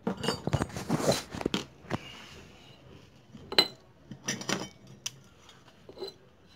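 Small loose metal engine parts clinking and clattering as they are handled on a workbench: a burst of clinks in the first two seconds, one sharp clink about three and a half seconds in, and another short clatter just after.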